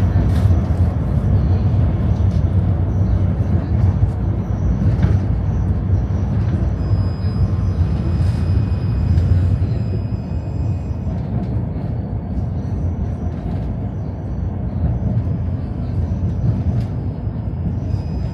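Tram running along its rails: a steady low rumble with occasional sharp clicks and knocks, easing a little in loudness in the second half.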